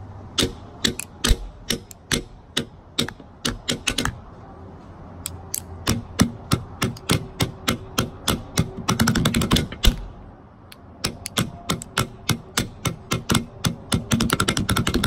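Thin wooden sticks drumming on a hard plastic flying disc: sharp, clicky taps in uneven runs, with a fast roll about nine seconds in and another near the end. Short pauses come around four and ten seconds in.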